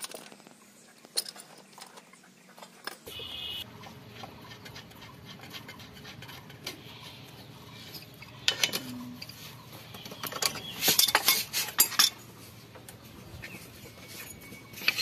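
Scattered metal clinks and knocks of steel fittings and a pipe wrench being handled against a steel flange plate, with a burst of sharp clinks between about eight and twelve seconds in.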